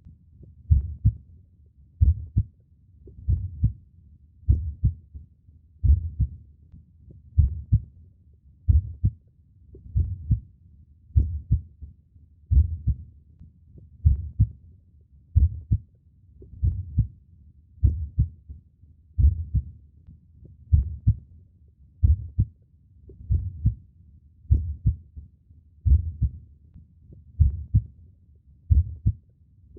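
Human heartbeat, each beat a low double thump (lub-dub), in a slow, steady rhythm of about one beat every 1.3 seconds.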